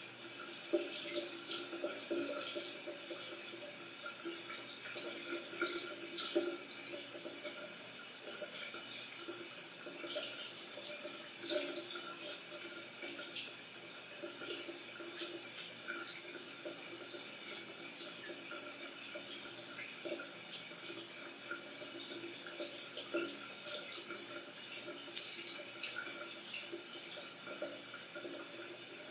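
Locker room shower running steadily: an even spray of water hissing down, with many small splashes and drips scattered through it.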